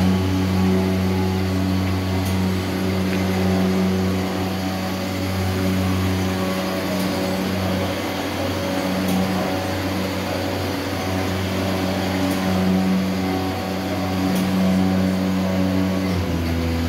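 HOMAG Profi BMG211 CNC machining centre running, a steady low mechanical hum that drops to a deeper pitch about sixteen seconds in.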